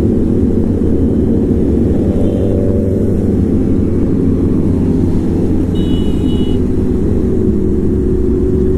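Superbike engine running steadily at highway cruising speed, heard from on the motorcycle itself, with the other bikes of the group riding close around it. A brief high beep comes about six seconds in.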